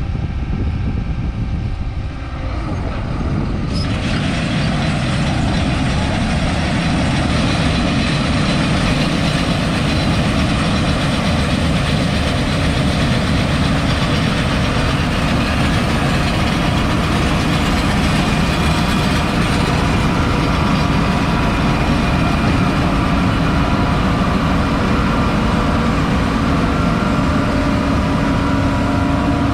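Combine harvester running steadily while cutting wheat: a continuous engine and machinery drone.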